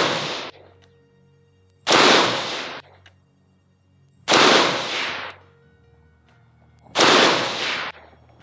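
BCM lightweight mid-length AR-15 fired in slow, aimed single shots: three shots about two and a half seconds apart, each with a short echo that dies away within a second. The tail of a shot fired just before carries into the start.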